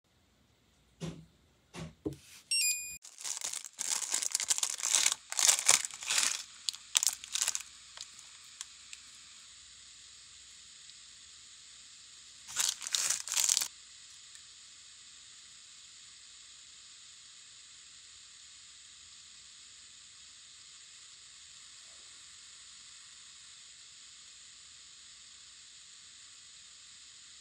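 A few light taps, then spells of crinkling and tearing as the foil seal of a small jar of nail charms is peeled back: a longer spell a few seconds in and a short one about halfway. Afterwards only a steady faint hiss.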